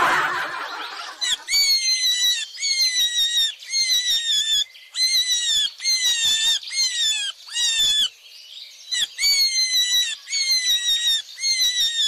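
A rabbit sound effect: a long run of short, high-pitched squeals, about two a second, pausing briefly twice.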